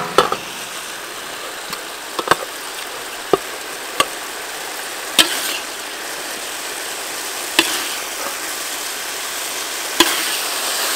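Metal spatula knocking and scraping against a wok and a steel tray, about eight sharp clinks spread out, as stir-fried greens are lifted out of the wok. Under it the wok keeps up a steady sizzle that grows a little louder near the end.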